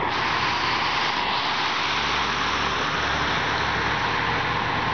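Steady rushing noise of a running vehicle, with a low rumble under it and no siren sounding.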